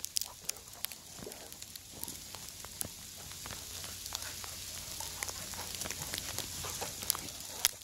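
Crunching and crackling of dogs' paws and footsteps in fresh snow as two dogs play-fight and chase, over a steady hiss, with one sharp click near the end.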